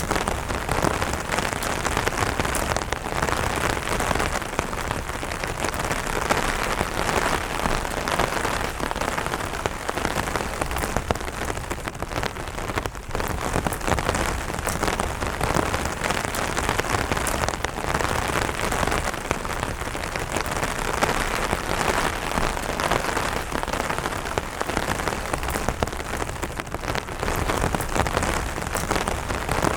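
Steady light rain falling on an umbrella: a dense, even hiss of drops striking the fabric canopy, with many fine ticks from single drops.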